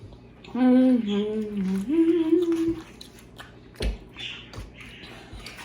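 A person hums a closed-mouth "mm-hmm" over about two seconds, in three held pitches that step down and then up. Faint clicks and taps of eating follow.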